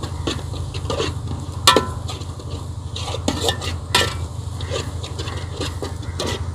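Perforated steel spoon stirring sliced onions frying in oil in a large aluminium pot: the spoon scrapes and clinks against the metal over a steady sizzle, with two louder clanks, about a second and a half in and about four seconds in. The onions are being fried until well browned before the tomatoes go in, and a low steady rumble runs underneath.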